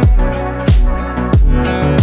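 Background music with a steady deep beat about every two-thirds of a second under held chords.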